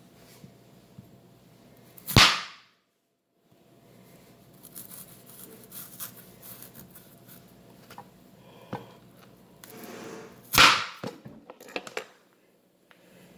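A kitchen knife cutting down through apple onto a cutting board: two sharp, loud knocks about eight seconds apart, with lighter clicks and scraping between.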